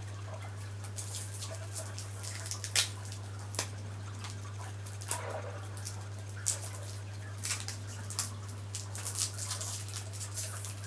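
Plastic lollipop wrapper crinkling in short, scattered rustles and clicks as it is worked open, over a steady low hum.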